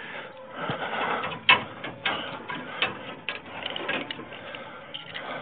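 Steel rebar and tie wire scraping and rattling as a hand works at a rebar crossing, with a few sharp metallic clicks.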